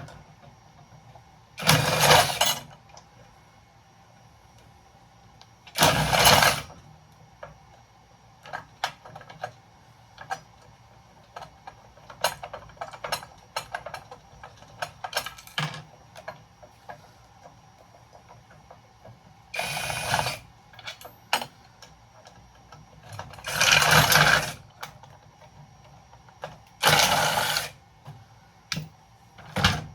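Handheld power driver running in short bursts, about five times, as screws are backed out of breaker-box parts, with light clicks and clinks of small metal pieces being handled between bursts.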